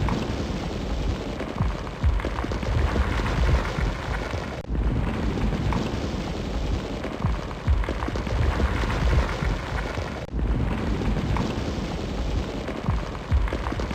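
A car fully engulfed in flames, burning with a dense steady rush and low rumble, dotted with sharp crackles and pops. The sound cuts out for an instant twice, about a third and two-thirds of the way through.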